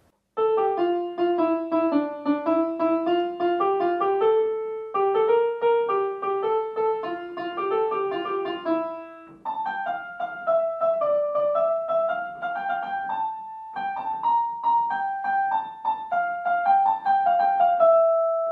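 Electronic keyboard playing a simple melody with a piano voice, in four short phrases with brief breaks between them, the last note held.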